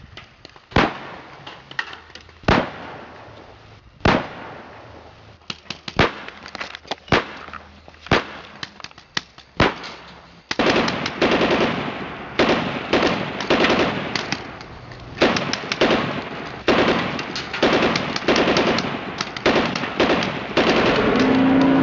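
A series of sharp knocks or pops, irregular and about one a second at first, then coming thick and fast with a noisy background from about ten seconds in.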